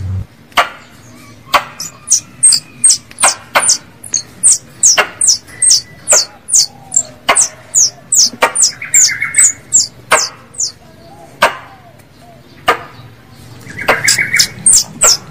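Plantain squirrel calls played as a hunting lure: sharp clicking chucks at irregular intervals, a fast run of short high falling chirps, and twice a brief buzzy trill.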